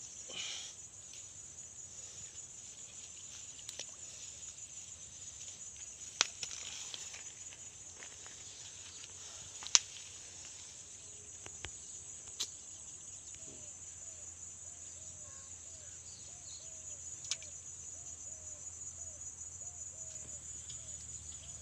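A steady, high-pitched insect chorus of crickets shrilling, with a few sharp clicks from handling or snapping twigs, the loudest about ten seconds in. In the second half a faint short chirp repeats about twice a second.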